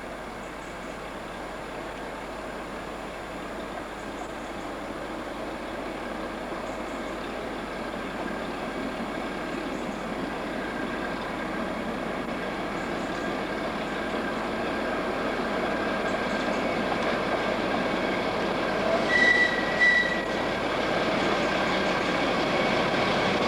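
A pair of Class 08 diesel shunters arriving, their running noise growing steadily louder as they draw closer. Near the end come two short high-pitched squeals in quick succession.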